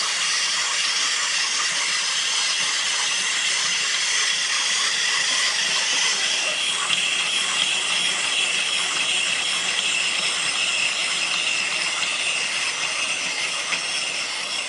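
Steady, loud hissing noise with faint held high tones running through it, fading near the end.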